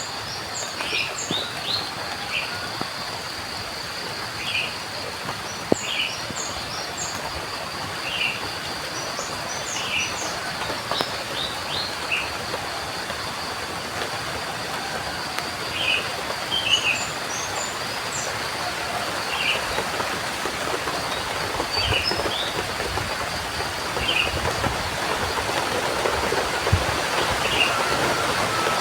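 Steady rain hiss with birds calling over it: one bird repeats a short call every second or two while others give quick high chirps, and a steady high tone runs beneath. The rain grows a little louder near the end.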